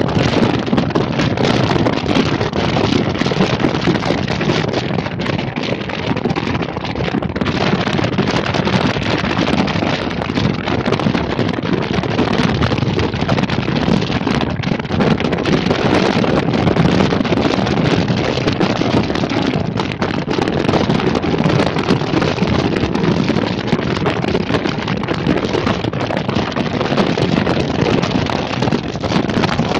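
Steady, loud wind rushing over the microphone, mixed with the running noise of a moving vehicle.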